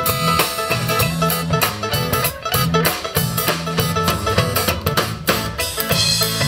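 Live country band playing an instrumental passage: acoustic and electric guitars over a bass line and drum kit keeping a steady beat.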